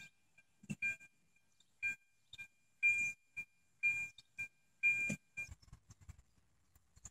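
Faint, irregular taps and clicks from a plastic blister pack being handled, about nine in all. Each has a brief, high, chime-like ring at the same two pitches.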